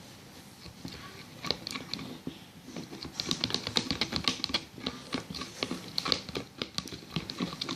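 Spoon stirring a glue slime mixture in a plastic container, giving a quick, irregular run of clicks and taps that becomes denser and louder about three seconds in.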